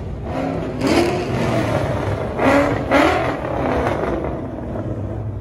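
Car engine revving hard in loud surges, about a second in and twice more between two and three seconds in, pitch rising with each surge, as a black Ford Mustang accelerates past.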